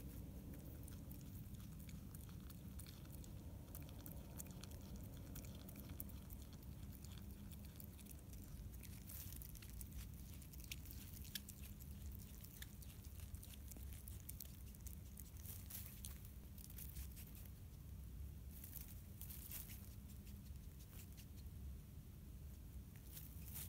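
Common brushtail possum chewing food: a faint, irregular run of small wet clicks and crunches, densest in the middle, over a low steady background hum.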